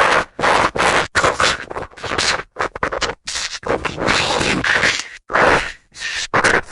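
A rapid string of short, harsh, scratchy sound-effect bursts, cut back to back with abrupt gaps between them.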